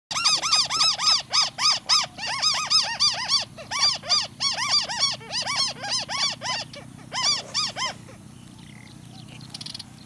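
White-browed crake calling: a rapid series of rising-and-falling notes, about four a second, growing weaker and stopping about eight seconds in.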